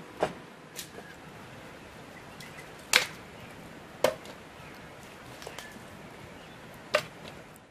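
Campfire of dry sticks crackling, with a few sharp loud snaps and pops, the loudest about three and four seconds in, over a low steady hiss.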